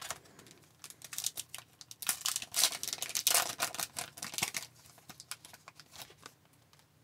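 Foil wrapper of a hockey card pack crinkling and tearing as it is ripped open by hand, a dense run of crackles and rustles. It is busiest in the middle and dies away after about five seconds as the cards are slid out.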